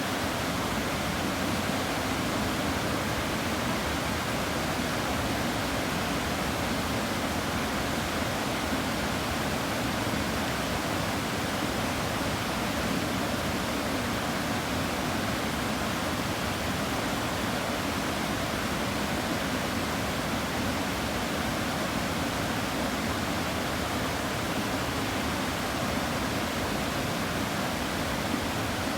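River water rushing steadily, an even unbroken roar of flowing water.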